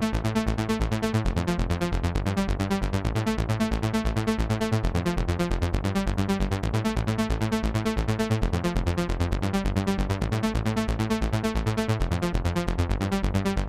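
Euro house track: an electronic intro of a pulsing synthesizer pattern in a steady, fast, even rhythm, with no vocals.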